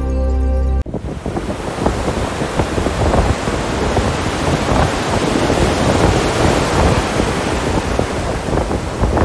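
A loud, steady outdoor rushing noise that starts abruptly about a second in as the music cuts off.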